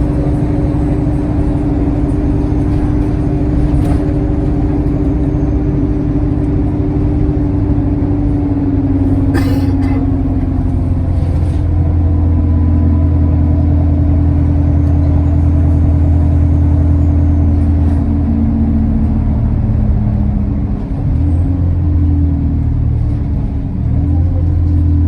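Alexander Dennis Enviro200 bus engine running under load, with a deep steady drone whose pitch shifts several times as it changes gear, and a faint high turbo whistle that rises and falls now and then. A short sharp rattle about ten seconds in.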